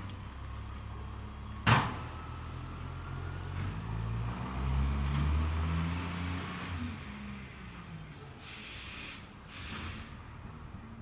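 Garbage truck at work: its diesel engine runs, then revs up for a few seconds and settles back. A sharp, loud bang comes about two seconds in. Later a high metallic squeal follows, then short bursts of hiss.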